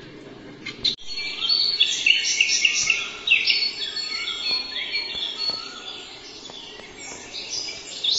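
Birds chirping: a dense chorus of quick, high chirps with a few lower whistled notes, starting abruptly about a second in.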